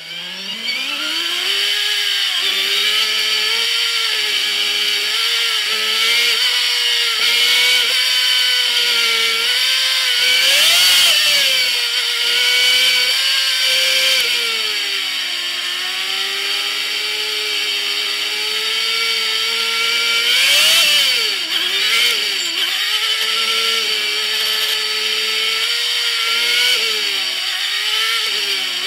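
Race car engine running hard on an oval, heard onboard, its note climbing as the car gets up to speed and then falling and rising again with the throttle through the turns.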